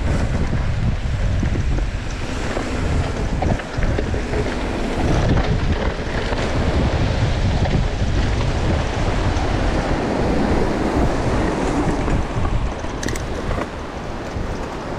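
Wind rushing over an action camera's microphone on a fast mountain-bike descent, with mountain-bike tyres rolling over a dirt trail and small knocks and rattles from the bike. The rushing eases a little near the end.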